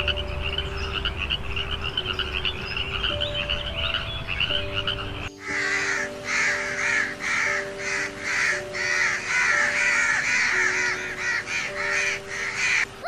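Frogs croaking in a continuous chorus. About five seconds in it cuts to a crow cawing over and over, roughly one to two caws a second.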